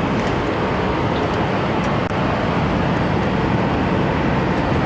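Airliner cabin noise in flight: the steady drone of the engines and rushing airflow, with a brief dropout about two seconds in.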